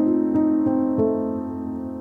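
Soft solo piano music: a few notes struck in the first second, then the last chord held and fading away.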